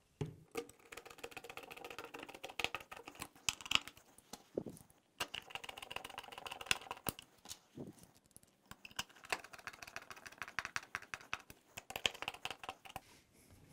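Faint, rapid, irregular clicking and rattling of a hand screwdriver with a Torx 25 bit turning screws into plastic drawer-slide mounts, with two short pauses.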